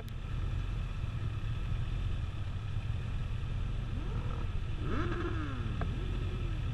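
Motorcycle engines idling with a low, steady rumble, with a few brief sounds rising and falling in pitch near the middle.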